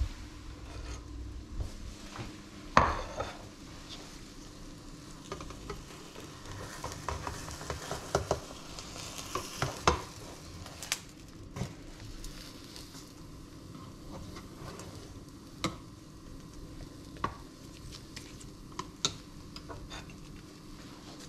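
Egg and spinach omelette sizzling softly in a frying pan. Scattered clicks and knocks of a spatula and the pan being handled come through it, the loudest about three seconds in.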